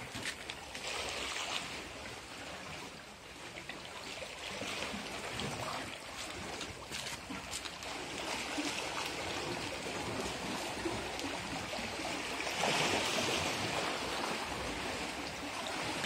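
Sea water washing and trickling among rocks, swelling louder about twelve seconds in.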